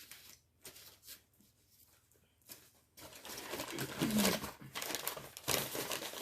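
Paper food wrapper crinkling and rustling as it is handled: faint scattered crackles at first, then louder and denser from about three seconds in, with a brief murmur of a voice partway through.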